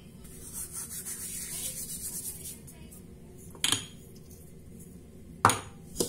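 Dried thyme rubbed and crumbled between the fingertips over a pan of soup, a soft dry rustle lasting a couple of seconds. Then sharp clicks, one a little after three seconds and two near the end.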